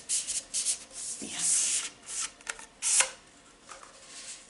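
Papery rustling and scraping as a cardboard mailing tube with a paper band around it is handled and opened, with one sharp snap about three seconds in.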